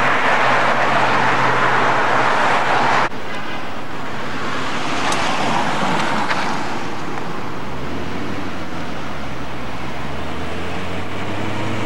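Road traffic: cars driving through an intersection, a steady wash of tyre and engine noise, with an abrupt cut about three seconds in. A low engine rumble comes in from about eight seconds.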